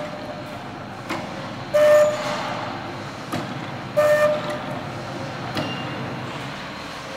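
Vertical form-fill-seal packing machine running a test cycle on PVA water-soluble film. Its steady mechanical running is broken twice, a little over two seconds apart, by a short loud buzzing tone, with a click between each one, as it forms and seals bags.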